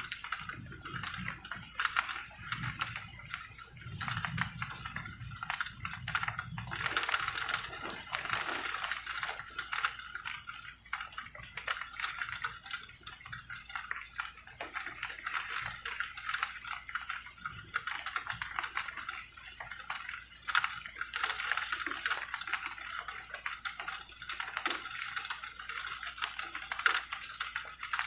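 Rain falling at night: dense, irregular drops ticking and pattering, over a steady, pulsing chorus of night animals that swells and fades.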